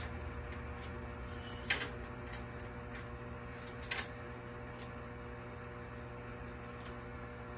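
Steady electrical hum with a few faint, short clicks of handling.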